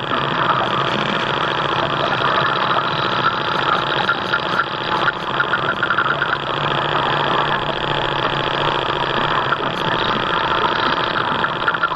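Radio-controlled scale model fishing boat under way, heard from on board: a steady motor hum with a light throbbing texture, mixed with the rush of water along the hull.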